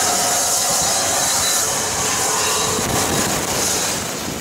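Steady loud steam hiss from the Southern Railway rebuilt West Country class Pacific steam locomotive No. 34046 'Braunton' standing at the platform, easing off slightly near the end.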